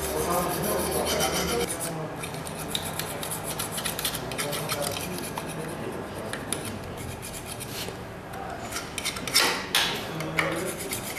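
Hand file rasping back and forth on a metal part, a steady run of short repeated strokes, with two louder strokes about nine and a half seconds in.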